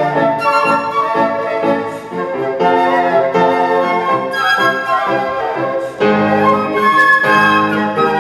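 Flute music played live, a melody of held and moving notes with piano accompaniment beneath.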